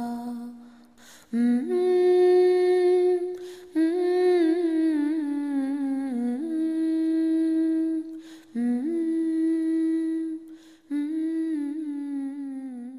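A woman's voice humming a slow, wordless melody in long held notes with a slight vibrato, in about five phrases with short breaths between them, fading out near the end.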